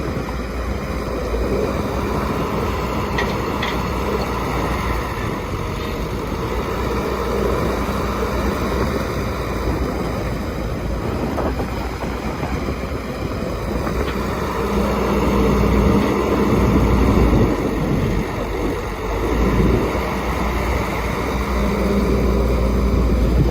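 Heavy construction machinery working, most likely a CAT excavator's diesel engine. It runs with a steady low rumble and pulls harder for a few seconds about two-thirds of the way in, and again near the end.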